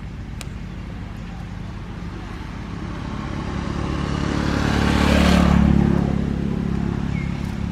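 A motor vehicle driving past: its engine sound swells over a few seconds, peaks a little past the middle and fades away.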